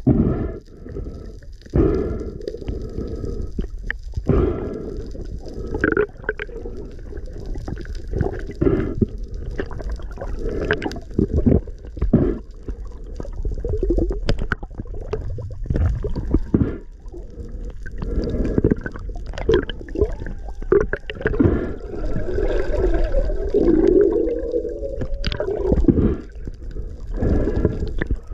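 Water gurgling and sloshing around an underwater camera, in irregular surges of muffled noise.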